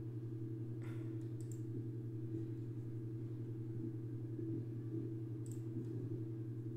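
A few computer mouse clicks, about a second in and again near the end, over a steady low electrical hum.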